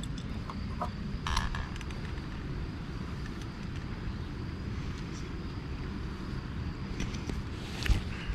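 Steady low outdoor rumble with a few light clicks and knocks, the loudest just before the end.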